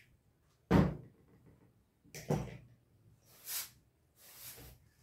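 Handling noises from a cloth turban and a plastic spray bottle: a sharp thump about a second in, a softer knock a second and a half later, then two short hissing rustles.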